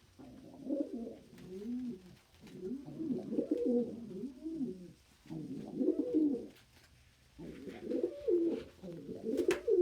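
Domestic pigeons cooing in four phrases, each a run of low, rising-and-falling coos with short pauses between phrases. A sharp click sounds near the end.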